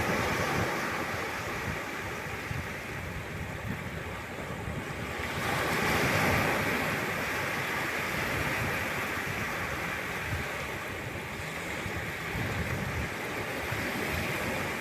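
Atlantic surf washing ashore, with a wave swelling louder about six seconds in, and wind buffeting the microphone.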